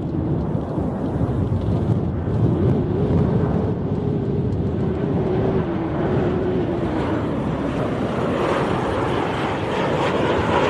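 Boeing 737-800 airliner's CFM56-7B jet engines on final approach with the gear down, passing close by: a steady low rumble with a wavering tone that dips about six seconds in, and a higher jet hiss building from about eight seconds in.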